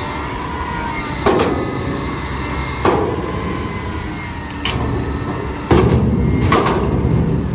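McNeilus garbage truck running at work, with a steady engine and hydraulic rumble. Five sharp metal bangs come at uneven gaps, the loudest about two-thirds of the way through.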